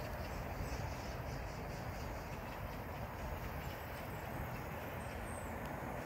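Outdoor ambience: a steady low rumble with a faint high hiss over it.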